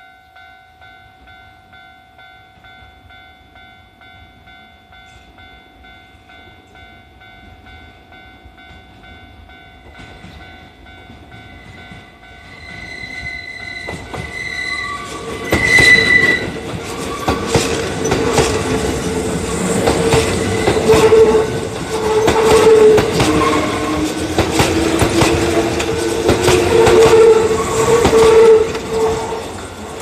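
Japanese level-crossing warning bell ringing steadily as a Kintetsu express (1233 series coupled to an 8400 series) approaches and passes close by. The train noise builds from about ten seconds in and turns loud about halfway, with fast clatter of wheels over rail joints and a motor whine slowly rising in pitch, then drops away at the very end.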